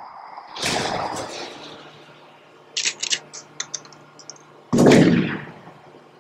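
Sound effects of an animated logo intro: a heavy boom, then a scattered run of small sharp clicks, then a second, louder gunshot-like boom that fades away over about a second.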